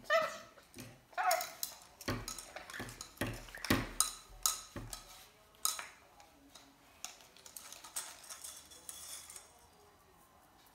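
Rainbow lorikeet playing with a hollow plastic ball toy on a tile floor: a run of sharp clacks, knocks and rattles as the toy is tossed and bumped against the floor and cupboard plinth, densest in the first half and thinning to scattered clicks. Two short pitched calls are heard near the start.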